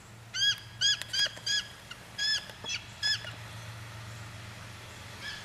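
Bald eagle calling: a quick series of about seven high, piping notes over about three seconds. Fainter calls start again near the end.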